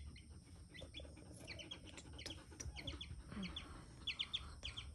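A baby chick peeping over and over: short, high, falling peeps in quick runs of two to four.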